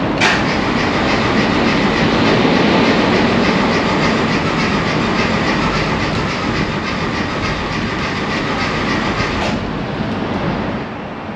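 A classic Mini's A-series four-cylinder engine being cranked by its starter motor without catching: a steady rhythmic churning, about three or four beats a second, that stops near the end.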